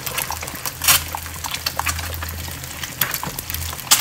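Eggs frying in oil in a pan, sizzling and crackling, while a spatula moves among them, with two louder sharp sounds about a second in and near the end.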